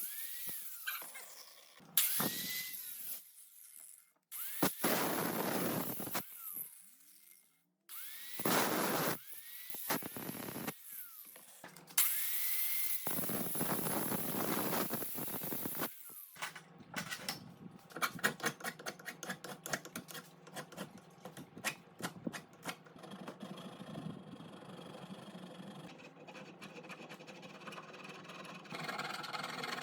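A handheld power tool run in short bursts, about six times in the first half, spinning up and winding down each time. After that comes a run of rapid sharp clicks and taps over a low steady hum.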